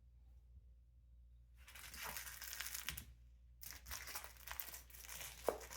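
Crinkle-filled fabric fish toy crinkling and rustling as a cat plays with it. It starts about one and a half seconds in, stops for a moment around the three-second mark, then starts again.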